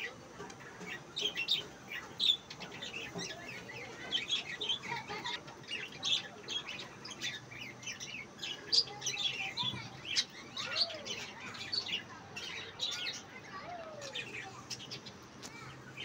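A flock of budgerigars chattering: many short, overlapping chirps and warbles without a break.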